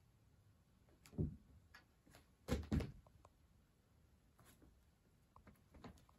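Cats tussling against a fabric pop-up play tunnel on a wooden floor: a thump about a second in, then two louder thumps close together near the middle, with lighter scuffs and taps later.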